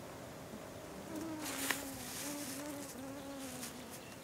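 A flying insect buzzing, its pitch wavering up and down, with a single sharp click about a second and a half in.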